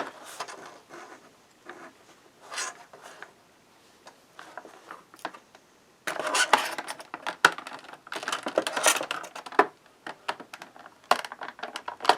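Action-figure packaging being handled as the figure is taken out: scattered plastic clicks, scrapes and crinkling, with louder rustling bursts about six and eight seconds in.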